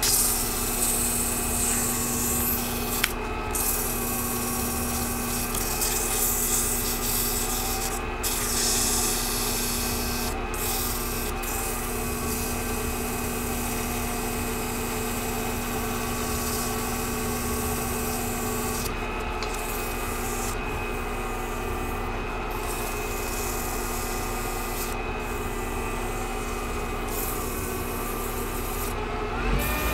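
Sandpaper held against a cast acrylic duck call blank spinning on a small benchtop lathe: a steady hissing rub over the hum of the lathe's motor. The paper lifts off briefly several times.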